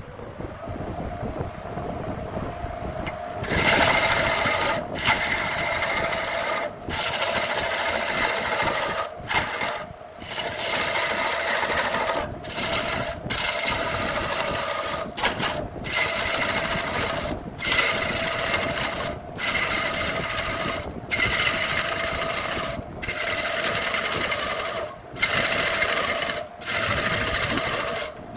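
Wood lathe spinning a burl blank with a turning tool cutting into it in repeated passes. A dense cutting hiss over the steady hum of the machine starts about three and a half seconds in and breaks off briefly every second or two as the tool lifts away.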